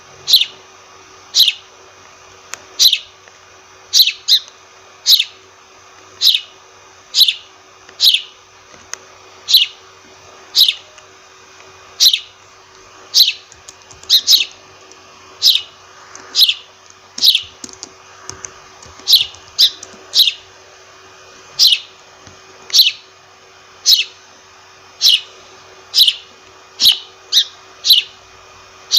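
A sparrow chirping over and over in single short chirps, each falling in pitch, about one a second and now and then two in quick succession.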